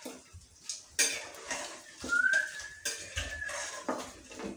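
Metal utensils clattering against a cooking pot in several separate knocks and scrapes. A thin whistle-like tone rises and then holds for about a second and a half in the middle.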